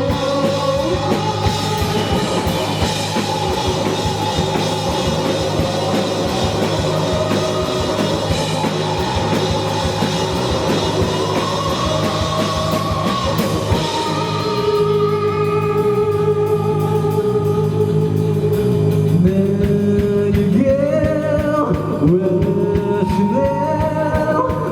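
Indie rock band playing live: drum kit, electric guitar and bass under a singing voice. About halfway through, the dense full-band sound thins out to held notes with sliding pitches.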